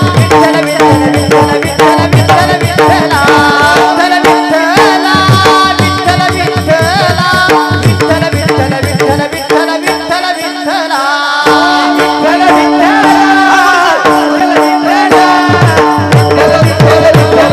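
Marathi devotional bhajan to Vitthal: a voice singing over a steady held drone, with a hand drum playing fast low strokes. The drum drops out for a couple of seconds about ten seconds in, then comes back.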